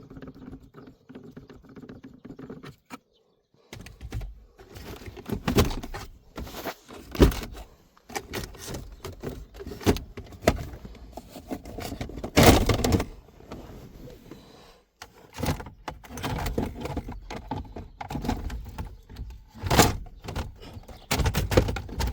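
Irregular clicks, knocks and rattles of hard plastic interior trim, the gear shifter surround being twisted and pulled loose by hand, with a few louder thunks.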